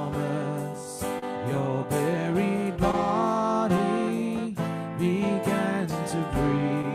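Live worship band playing: singing over strummed acoustic guitar with a drum kit keeping a steady beat.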